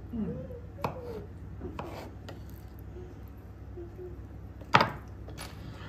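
Kitchen handling sounds: a few separate knocks and clatters of things set down and handled on the counter, the sharpest about three-quarters of the way through, over a low steady hum.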